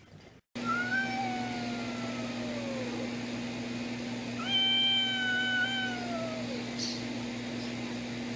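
Cat yowling: long drawn-out wails of about two seconds each that slide down in pitch at the end, two in full and a third starting at the very end, over a steady low hum.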